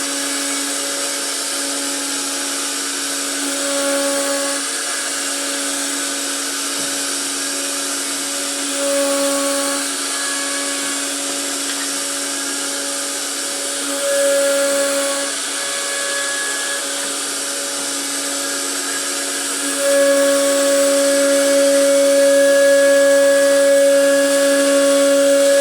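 CNC router spindle running steadily at a high pitch with a hiss over it, growing louder in short spells about 4, 9 and 14 seconds in and staying louder from about 20 seconds in.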